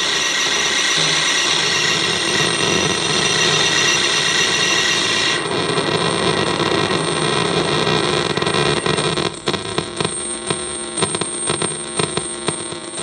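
Harsh, glitchy electronic noise from a circuit-bent Korg DDD-1 drum machine patched with the manipulator effect. A dense buzzing wall of noise with steady tones inside it thins out a little over five seconds in. About nine seconds in it breaks into stuttering clicks and glitches.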